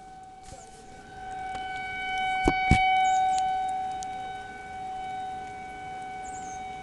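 Federal Signal 2001-130 rotating outdoor warning siren sounding a steady single tone, swelling to its loudest about three seconds in and then fading as the rotating horn turns past and away. Two sharp clicks come just before the loudest point.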